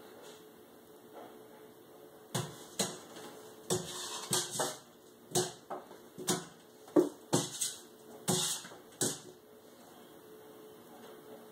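A kitten pouncing at a laser dot on a wooden door: a run of about fifteen irregular thumps and short scuffs as its paws hit the door and land on the floor, starting about two seconds in and stopping a couple of seconds before the end.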